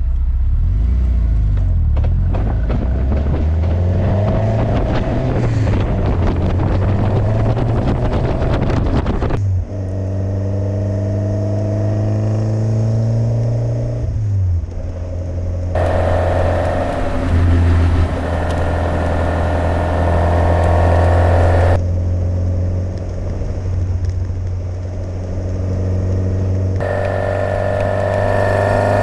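Ford Duratec four-cylinder engine of an open Seven-style kit car running under way, with wind and road noise. Its pitch rises and falls over the first several seconds, then it holds steadier. The sound changes character abruptly several times, where recordings of the same drive from different microphones are cut together.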